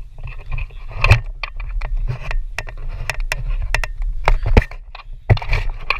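Handling noise on a handheld action camera's microphone: irregular knocks, scrapes and clicks over a steady low rumble.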